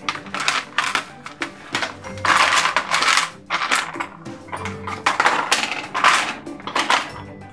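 Small hard plastic toy tool pieces (bolts, washers, spanners) clattering and rattling against each other and a plastic tray as hands rummage through them, in a string of quick clicks with a few longer rattling scrapes.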